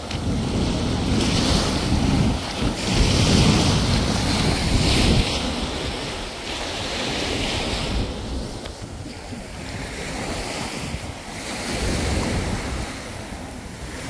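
Small sea waves breaking and washing up a sandy beach, with wind gusting on the microphone, heaviest for the first five seconds or so.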